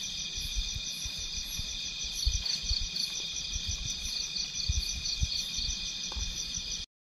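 Steady night chorus of crickets and other insects, several layers of high pulsing trills, under irregular low thumps and rumbles. The sound drops out completely for a moment near the end.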